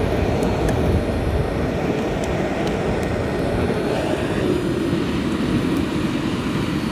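Small battery-powered air blower running steadily, forcing air into a charcoal-fired furnace: a steady low roar of blower and fire.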